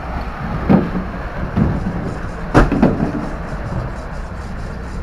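Busy fishing-harbour background: a steady low rumble with a few sharp knocks, the loudest about two and a half seconds in, as fish are cut and handled on the concrete.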